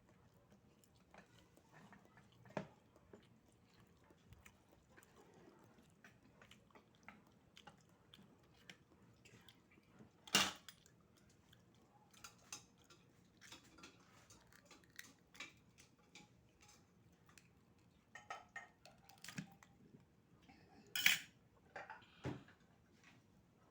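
Scattered light clinks of cutlery against a plate, with faint chewing. Two sharper, louder clinks come about ten seconds in and again near the end.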